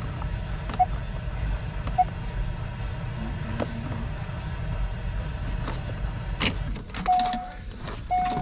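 2001 Corvette's 5.7 L V8 idling steadily, heard from inside the cabin, with the dashboard's electronic chime beeping: two short beeps in the first few seconds and two longer beeps near the end. Some clicks and knocks from handling in the cabin come in the second half.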